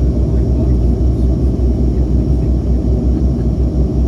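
Steady low rumble of a Bombardier Dash 8 Q300 twin-turboprop airliner's engines and propellers, with a fluttering deep drone underneath.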